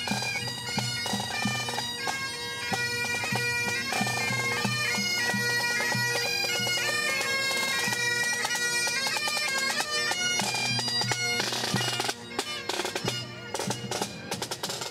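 Bagpipes playing a tune over their steady drones. About twelve seconds in the tune breaks off and scattered sharp clicks follow.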